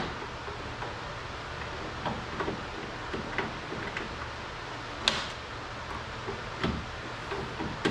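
Scattered clicks, taps and light knocks of parts being worked loose inside an opened-up car door, over a faint steady hum. One sharper click about five seconds in is the loudest.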